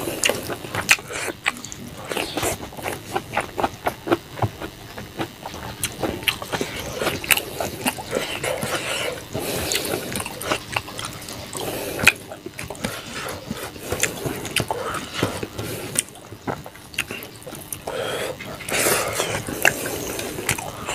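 Close-up eating sounds of a man eating rice and curry by hand: wet chewing and lip smacks, many small irregular clicks, with fingers gathering rice on a plate.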